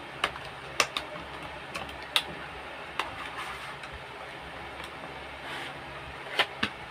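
Small cardboard product box and its plastic inner tray being handled and pulled open by hand: a handful of sharp clicks and taps scattered over a steady low hiss.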